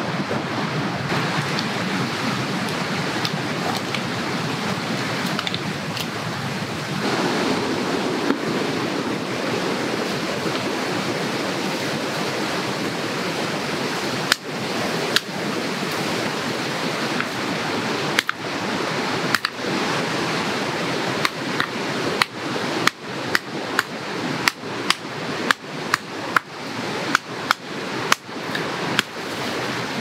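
Hatchet chopping and splitting firewood on a wooden chopping stump. A few scattered blows come about halfway in, then a regular run of strikes about one and a half a second as the blade is driven in at an angle from both sides. All of it over a steady rushing of wind.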